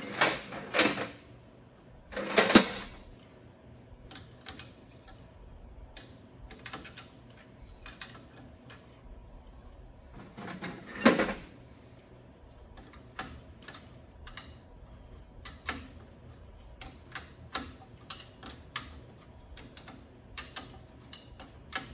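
Steel wrenches clanking, loudest several times in the first three seconds and once about eleven seconds in, then a long run of light, irregular metal clicks as a tool works a fitting on a truck's front brake.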